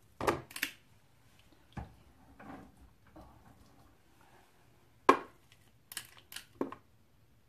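Metal spoon scooping solid coconut oil and knocking against a plastic container: a scattering of separate sharp taps and clunks, the loudest about five seconds in.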